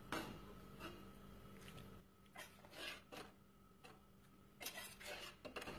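Freshly boiled paccheri being lifted out of the pot and dropped into a wok: a few faint, short scrapes and soft plops, spread out with quiet gaps between them.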